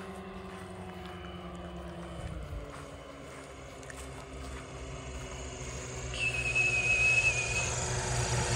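Homemade twin-engine light aircraft's engines droning as it comes in to land, the engine note dropping a little over two seconds in and growing louder as the plane nears. A short high-pitched whistle sounds about six seconds in.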